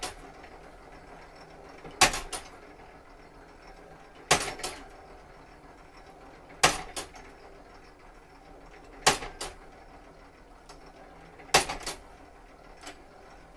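Striking mechanism of an 1872 E. Howard tower clock running through a strike sequence: five dry metallic clacks about every two and a half seconds, each followed by a lighter click or two, with no bell ringing after them. The strike train is counting out twelve o'clock and working properly.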